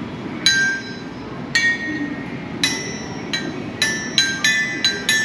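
Clear pitched notes struck one at a time on tuned percussion, ringing like small bells or chimes: about ten strikes at uneven spacing and changing pitch, played as a simple tune.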